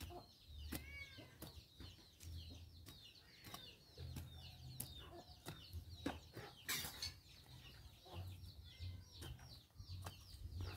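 Chickens clucking and small birds chirping, with scattered dull strikes of a long metal bar chopping into the soil.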